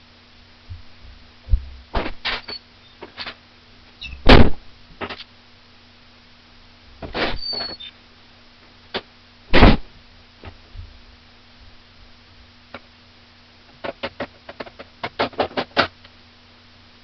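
Scattered knocks and thumps, the two loudest about four and nine and a half seconds in, then a quick run of about a dozen taps near the end.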